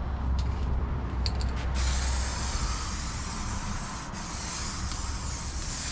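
Spray paint hissing steadily from a spray nozzle onto metal lift arms, starting about two seconds in after a few short clicks, with a brief break near the middle. A low wind rumble runs underneath.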